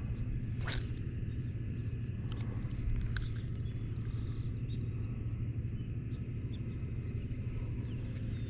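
A cast with a spinning rod and reel: a quick swish of the rod and line a little under a second in, a sharp click a couple of seconds later, then the lure being reeled in, all over a steady low rumble.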